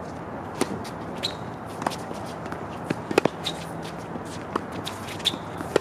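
Tennis rally on an outdoor hard court: a serve and then racket hits and ball bounces as a string of sharp knocks, the loudest about three seconds in, with footsteps and brief sneaker squeaks on the court surface.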